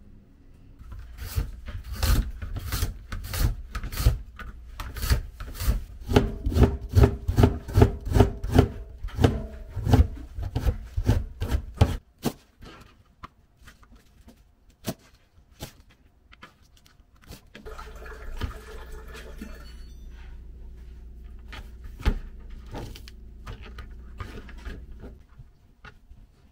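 Kitchen knife chopping vegetables on a plastic cutting board: a long run of quick, even knocks, about three to four a second, that stops about halfway through, followed by slower, scattered cuts. A low steady hum comes in later.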